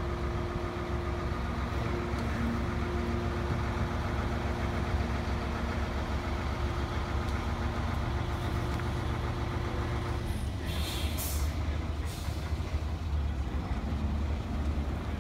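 DAF garbage truck's diesel engine running steadily, with a steady whine over it that stops about ten seconds in. Short hisses of released air follow soon after.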